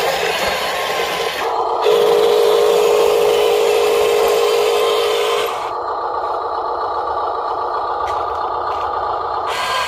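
Huina radio-controlled dump truck's electric motor and gearbox whining steadily as it drives over sand, the whine changing in pitch and strength several times as the throttle changes, loudest between about two and five seconds in.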